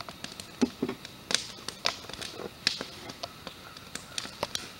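Irregular light taps and clicks, about a dozen scattered over a few seconds, as objects are handled.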